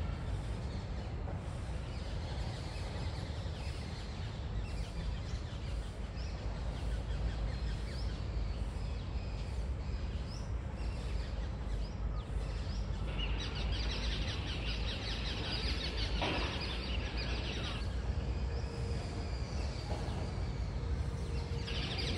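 Outdoor ambience: many birds chirping and calling in the trees over a steady low rumble. The chirping is densest a little past the middle.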